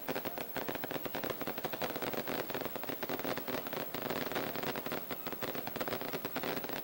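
A long string of firecrackers hung from a fireworks balloon, popping in rapid, unbroken succession as a dense crackle.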